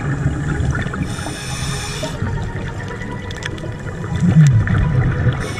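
Scuba diver breathing underwater through a regulator: a hiss of about a second on each inhale, about a second in and again near the end, with a bubbling, gurgling rumble of exhaled bubbles between.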